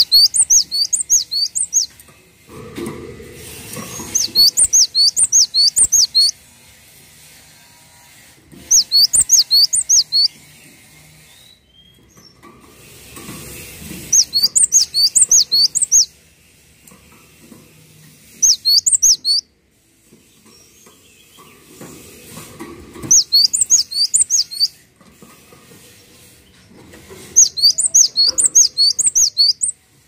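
Cinereous tit (gelatik watu) singing in seven bouts of one to two seconds. Each bout is a fast run of high, sharp whistled notes, about four a second, with pauses of a few seconds between bouts.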